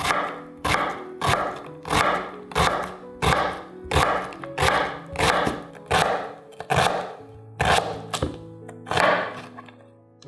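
Chef's knife dicing an onion on a wooden cutting board: a regular chop about three times every two seconds, each stroke a sharp knock on the board with a crunch through the onion, stopping just before the end.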